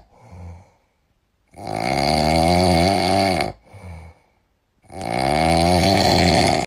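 Snoring sound effect: two long, loud snores, each with a short, softer breath between them.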